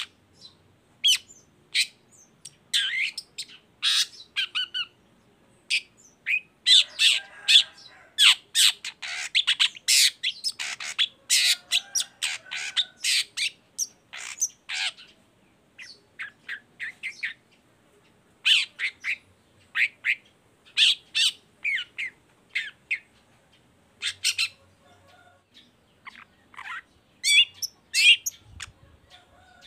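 Long-tailed shrike (cendet) singing: a rapid string of short notes in runs, the longest and densest run near the middle, with brief pauses between runs.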